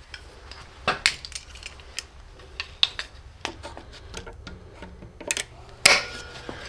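Steel locking pliers (vise grips) being fitted and clamped onto a screw standing in a wooden block, giving a few sharp metallic clicks and clanks. The loudest comes near the end and rings briefly.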